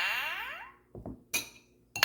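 Glasses clinking: a ringing clink fades over the first second, a short lighter clink follows a little past halfway, and another bright ringing clink starts at the very end.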